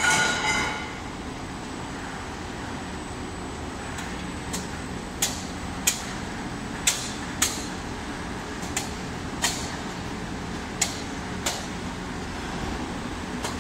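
Steady running hum of a caramel popcorn drum and cooling conveyor line. A metallic clang rings out at the start, then about ten sharp metallic ticks come at irregular intervals over the second half.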